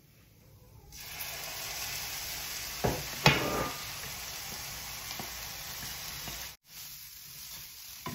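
Ground beef and sauce sizzling in a hot frying pan with rice and egg, the sizzle starting about a second in as the beef goes in. Two sharp knocks of a metal spoon against the pan a little after three seconds are the loudest sounds; the sizzle breaks off briefly near the end and resumes quieter while it is stirred.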